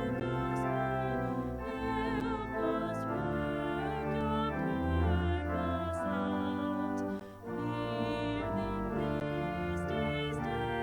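Worship-service music: slow sustained chords with a wavering melody line on top, breaking off briefly about seven seconds in before the next phrase.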